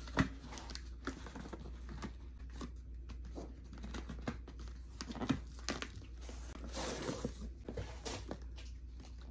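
Paper shipping labels and packaging being torn and crinkled on a cardboard gift box, with scattered taps and knocks as the box is handled.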